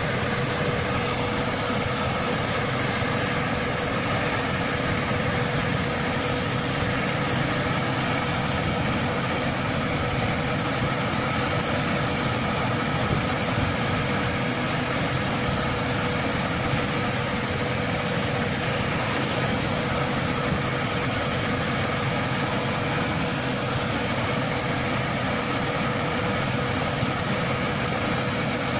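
New Holland combine harvester travelling on the road, its diesel engine running steadily with a constant whine above the engine noise.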